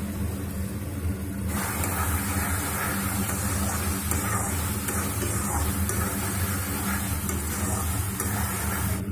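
Onion and capsicum in tomato and soy sauce sizzling in a steel kadai while a steel spatula stirs and scrapes, over a steady low hum. The sizzle grows louder about a second and a half in.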